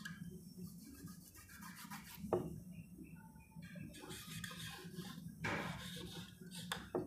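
Marker pen writing on a whiteboard: faint rubbing, scratchy strokes, with a single sharp tap about two and a half seconds in.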